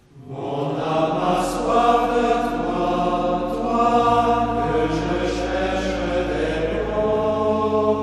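Soundtrack music of sung religious chant over a held low drone note, starting suddenly at the beginning; the drone shifts pitch about four seconds in and again near the end.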